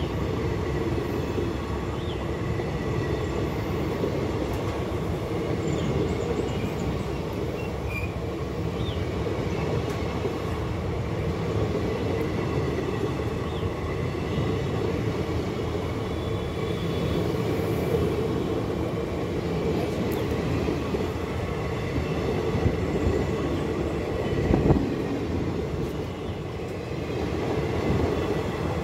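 Passenger coaches of an express train rolling past close by: a steady rumble and clatter of steel wheels on the rails, with a sharper knock near the end.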